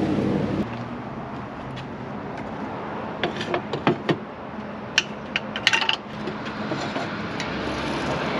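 Food sizzling in a hot cast iron pan, with a few sharp metallic clicks and taps of a cooking utensil against the pan a few seconds in.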